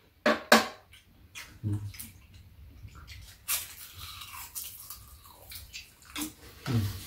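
Metal spoon and chopsticks clicking and scraping against bowls and a frying pan, in many short sharp clicks, with chewing while the fried rice is eaten.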